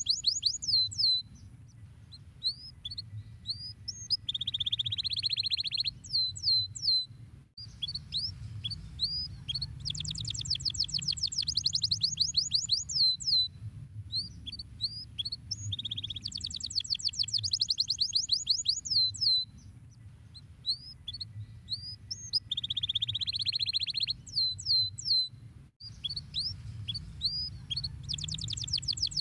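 Canary song: fast high trills, curved descending whistled notes and buzzy rolled phrases, running almost without a break over a low background hum. The song cuts out briefly about a quarter of the way in and again near the end.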